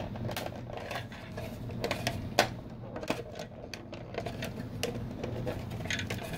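Scattered clicks, taps and knocks from an Itron Centron C1S electric meter's cover and base being squeezed and worked by hand to pop its latching pins loose, with one sharper knock about two and a half seconds in. A steady low hum runs underneath.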